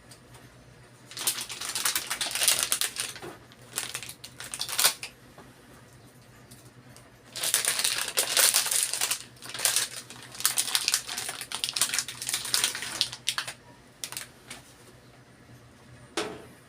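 Computer hardware being handled inside an open desktop case: irregular bursts of clicking and rattling of metal and plastic parts, in two main spells with a pause between.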